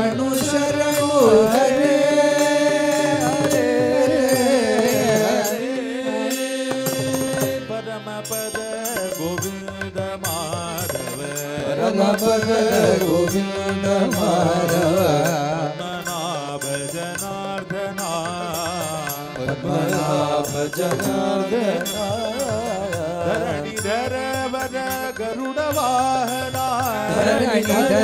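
Men singing a Carnatic-style devotional bhajan (nama sankirtanam), holding long ornamented notes for the first several seconds, then moving through a busier melody from about eight seconds in, over a steady low drone.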